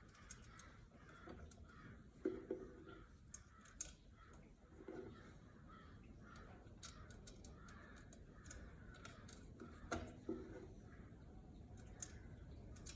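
Crows cawing a few times in the background, with scattered light clicks and knocks.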